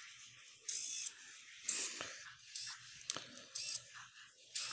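Small hobby servo motor driven by an Arduino, stepping between set angles: short, faint bursts of gear buzz about once a second, with a couple of small clicks.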